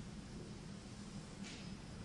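Quiet room tone: a steady low hum under faint hiss, with a soft breath-like sound about one and a half seconds in.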